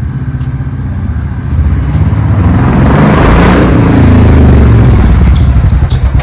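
Road vehicle noise: a loud low rumble with a rushing sound that builds to a peak in the middle and then eases, and two short high beeps near the end.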